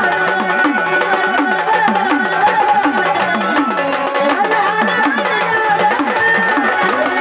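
Indian folk music: a hand drum plays a steady rhythm, its bass strokes swooping up and down in pitch about twice a second, under a sustained melody line.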